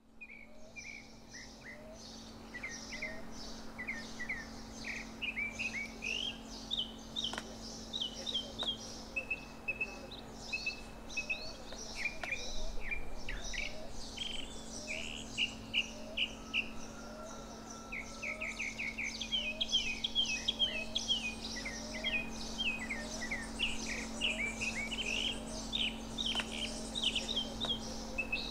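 Many birds chirping and trilling over a steady low hum.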